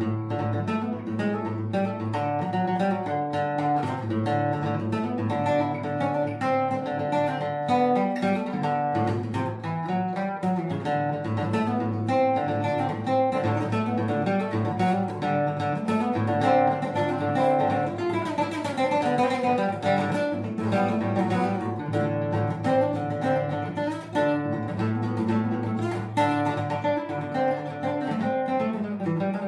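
Acoustic guitar music: steady plucked and strummed playing with many quick notes.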